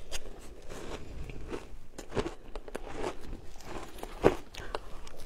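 Shaved ice being bitten and chewed: a run of irregular crunches and crackles, with one sharp, louder click about four seconds in.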